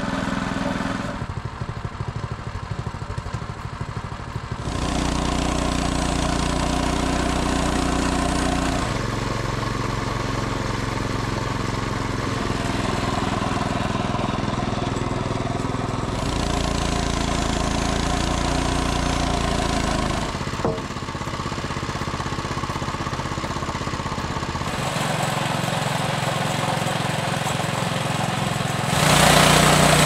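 Frontier OS18 portable bandsaw mill running with its small gas engine, the blade working through a log. The engine note shifts in steps every few seconds and gets louder near the end.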